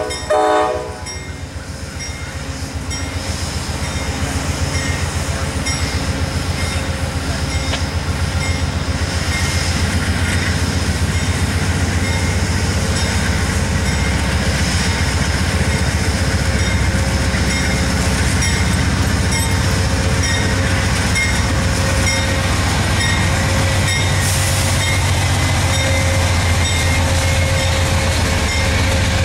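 Amtrak passenger train led by two GE P42DC Genesis diesel locomotives: the horn sounds and cuts off within the first second. After that the locomotives' diesel engines run with a steady drone that grows louder as the train passes.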